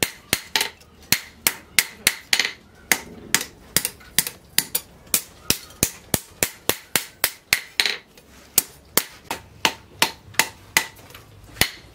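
Hand hammer forging red-hot disc brake rotor steel on a steel anvil post: a quick run of sharp metal blows, about three to four a second.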